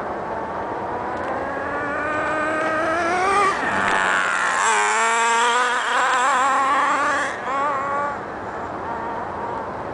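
HPI MT2 nitro RC truck's small glow-fuel engine running at high revs as the truck races in and passes close by: the pitch climbs as it nears, the engine is loudest and warbles for about four seconds from the middle on, then it drops away as the truck goes off.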